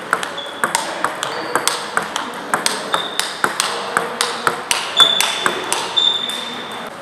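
Table tennis rally: the ball clicking off paddles and the table several times a second, mixed with ball clicks from neighbouring tables, echoing in a large sports hall. A few short high squeaks come in about five and six seconds in.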